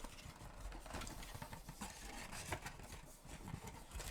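Faint, irregular light taps and rustles of hands handling and opening a small cardboard trading-card mini box.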